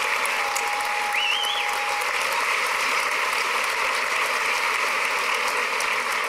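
Crowd applauding steadily, with a short high tone sounding briefly about a second in.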